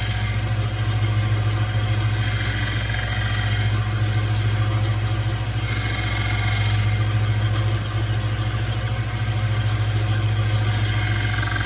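1x30 Rikon belt sander running with a steady hum, a diamond belt fitted. A knife blade is drawn across the belt in about four separate passes, each giving a hissing grind that lasts about a second.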